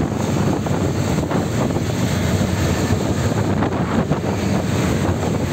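Steady rush of wind on the microphone mixed with road traffic noise, recorded from a moving vehicle.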